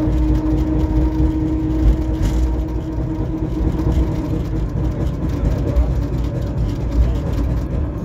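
Running noise of the FVV CSM prototype articulated tram no. 3720, heard from inside at the rear: a steady low rumble of wheels on the rails, with a humming tone that fades out about halfway through.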